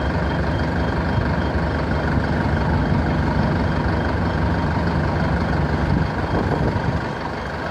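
Heavy vehicle engine running steadily with a low rumble, easing off a little about six seconds in. A faint high beep repeats about twice a second over the first few seconds.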